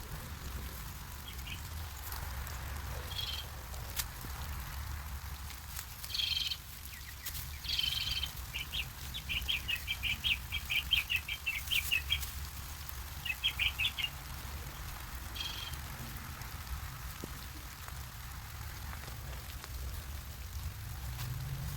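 A songbird singing: a few scattered short chirps, then a fast trill of repeated notes lasting about three seconds, with a shorter trill after it, over a steady low background rumble.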